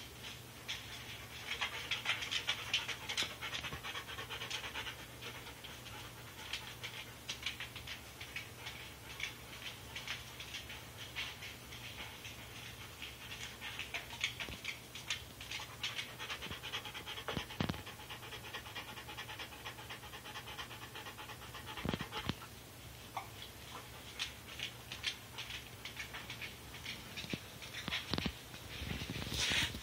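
A dog panting in quick, even breaths, over a steady low hum, with a couple of soft bumps partway through.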